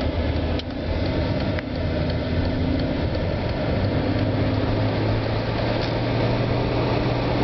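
A 1999 Mercedes-Benz S-Class idling with its HVAC system running, a steady hum under an even rush of air. Two sharp clicks come about a second apart near the start.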